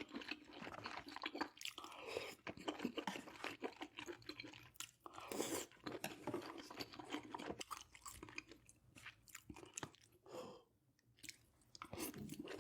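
Close-miked chewing: a person chewing a mouthful of food with many small wet clicks and smacks, easing off briefly near the end.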